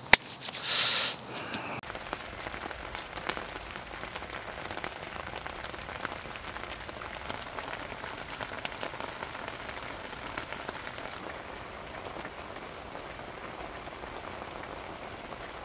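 Rain falling steadily, with scattered single drops ticking. A brief louder noise comes just under a second in.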